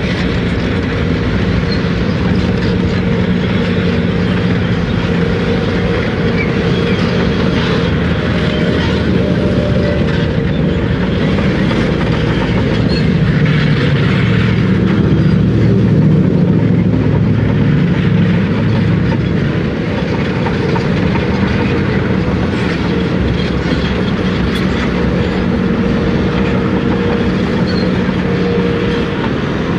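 Caterpillar 345B L tracked excavator's diesel engine running steadily under working load as it digs, its note swelling and rising a little about halfway through.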